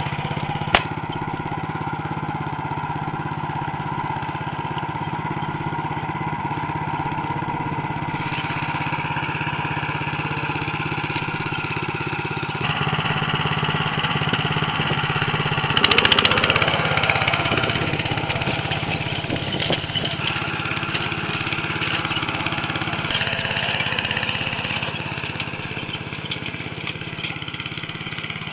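Single-cylinder engine of a Motor Sich MB-9E walk-behind tractor running steadily while the machine pulls a harrow. A single sharp click comes about a second in, and the engine is louder for a few seconds around the middle.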